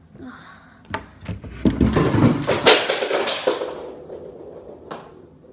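A table being shifted and something knocked off it: a couple of knocks, then a loud clatter of impacts lasting about two seconds that dies away, with one more knock near the end.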